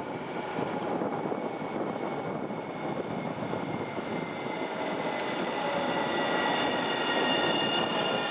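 An electric train running on rails and drawing nearer, its running noise growing louder. High whining tones join about five seconds in and grow stronger, the start of wheel squeal.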